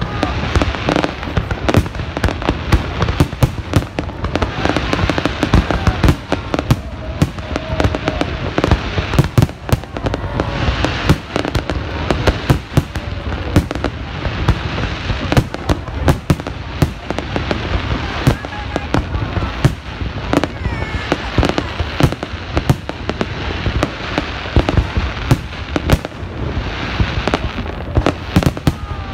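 Fireworks display: aerial shells bursting in a rapid, unbroken string of sharp bangs, several a second, with no let-up.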